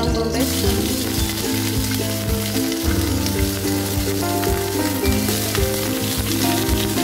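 Garlic and sliced onion sizzling in hot oil in a nonstick frying pan, stirred with a wooden spatula. The sizzle jumps up suddenly just after the start, and background music plays over it throughout.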